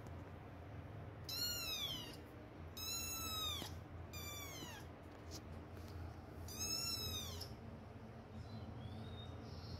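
Kitten meowing: four high, thin meows, each rising and then falling in pitch, the first three close together and the last about six and a half seconds in.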